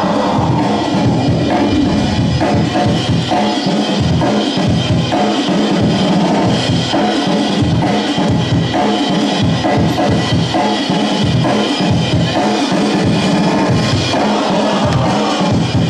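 Loud drum-heavy break-beat music from the DJ, with a steady kick and snare beat.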